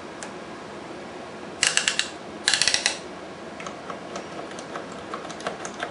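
Rotary selector switches on a Hickok 600A tube tester being turned by hand, clicking through their detents. There are two quick runs of clicks, then scattered single clicks.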